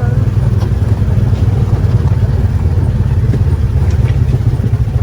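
Side-by-side UTV engine running steadily while under way, with a heavy, constant low rumble.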